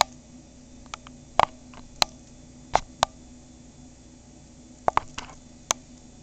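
About nine sharp clicks and taps at irregular intervals, over a faint steady low hum.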